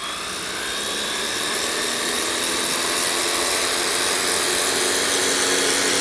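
Cordless high-pressure washer running: its pump motor hums steadily under the hiss of the water jet blasting moss off concrete. It switches on abruptly and grows slightly louder over the first couple of seconds.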